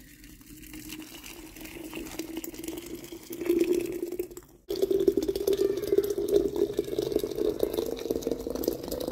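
Hot water being poured into a heat-resistant glass teapot onto green tea leaves. The pouring grows louder and its pitch rises slowly as the pot fills, with a brief break about halfway through.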